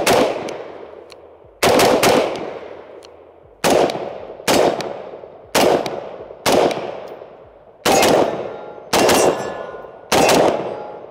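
A Daniel Defense M4A1 RIII 14.5-inch AR-15 in 5.56 NATO, unsuppressed and without a muzzle brake, fired semi-automatically in rapid double taps: pairs of sharp shots about a second apart, each ringing off in echo.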